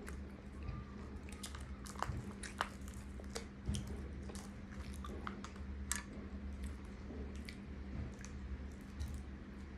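Close-miked eating sounds: someone chewing and biting cimol, the chewy tapioca-starch balls, with frequent sharp mouth clicks and smacks over a steady low hum.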